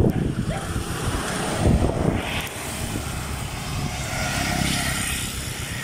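Road traffic close by: engine rumble and tyre noise, swelling about four seconds in as a three-wheeler auto-rickshaw drives past.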